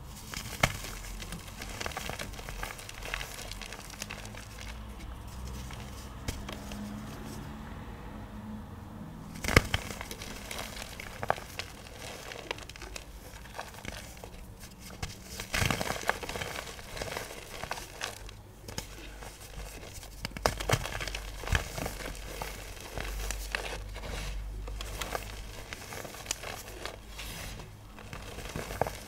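Crumbly clumps of powdery iron oxide pigment being crushed: dense crackling and crunching with sharper snaps, the loudest about ten seconds in and again around sixteen seconds.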